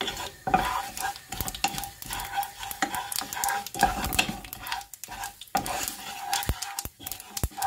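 Coarsely ground spices and sesame seeds sizzling in olive oil in a non-stick frying pan, stirred with a spatula that scrapes and taps against the pan in quick irregular strokes.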